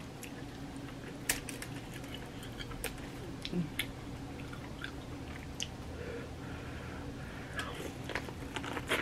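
Close-up eating sounds of someone biting and chewing sauce-coated corn on the cob: scattered sharp clicks and crunches of the kernels with wet mouth noises.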